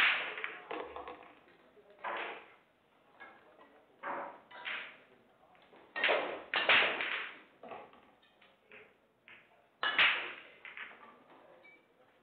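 Pool balls striking with a sharp click as a shot plays out, then a series of separate knocks and clacks with short ringing tails, the sharpest about ten seconds in.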